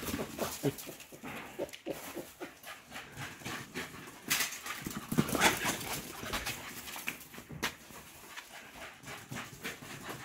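Two black Patterdale terriers playing a chase game on stone paving: a run of short scuffles and clicks, with a few louder dog noises about four and five seconds in.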